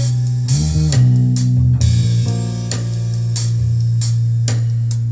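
Music played through a pair of Sony SS-CM3 two-way bookshelf speakers with 4.5-inch paper-cone woofers, with a strong, steady bass line and regular drum hits.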